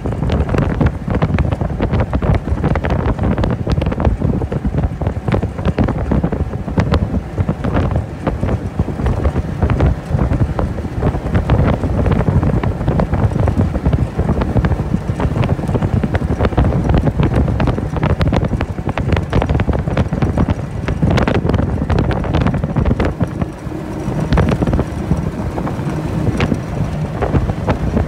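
Heavy wind buffeting on the microphone as a jon boat runs across choppy water, its 25 hp Johnson outboard running underneath.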